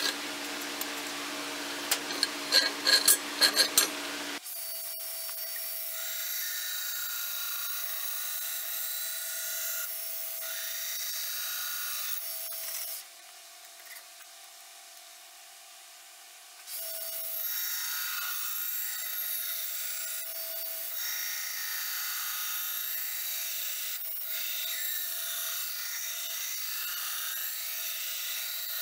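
Belt grinder grinding fullers into a 5160 steel sword blade: a steady grinding hiss with a constant motor tone, dropping off for a few seconds midway. It is preceded by a few sharp metallic clinks in the first seconds.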